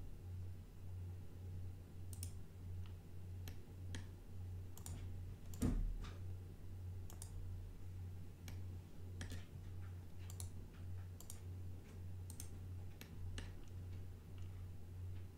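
Computer mouse clicking at an irregular pace, a few clicks a second at most, over a steady low hum. One louder thump comes about a third of the way in.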